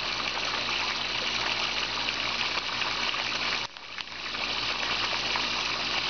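Water gushing steadily into a koi pond, with a brief dip in level a little past halfway before it returns.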